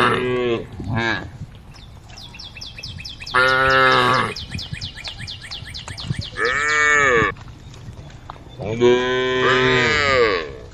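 Cows mooing: several long, loud calls a couple of seconds apart, one of them rising and then falling in pitch. A fast, high, evenly repeating chirping goes on behind.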